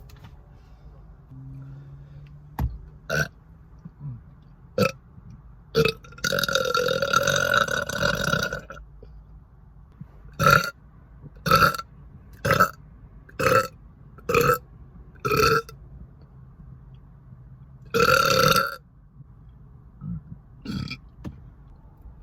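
A woman burping over and over. First come a few short burps, then a long drawn-out one, then a run of six short burps about a second apart, a second long burp, and two small ones near the end.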